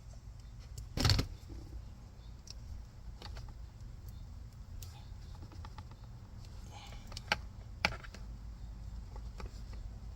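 Handling noises from work on a car's door-sill trim and wiring: a dull thump about a second in, then two sharp clicks a half second apart near the end, over a low steady rumble.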